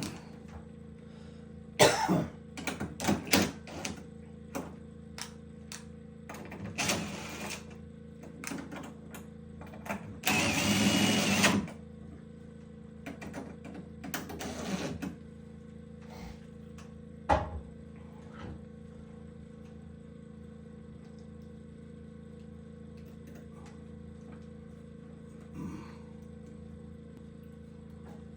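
Scattered knocks and clatter of hand work with tools and materials, over a steady low hum. A louder stretch of noise lasts about a second and a half near the middle.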